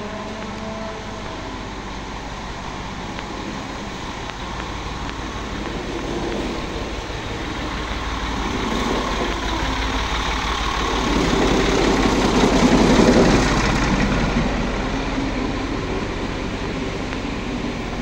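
Steady mechanical rumble and hiss, slowly building and swelling loudest about eleven to fourteen seconds in before easing off.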